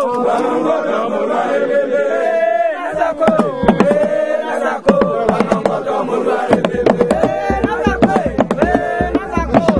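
A group of men chanting a song together, with sharp percussive strikes joining in about three seconds in and deep drum beats from about two-thirds of the way through.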